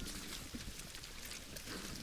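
Wild boars foraging at a feeder: faint rustling and a few light clicks over a steady hiss.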